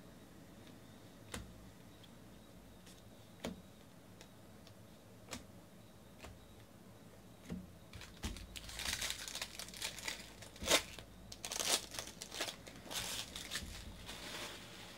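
A few light clicks of trading cards being handled, then about eight seconds in a foil baseball card pack is torn open, its wrapper crinkling and ripping for several seconds.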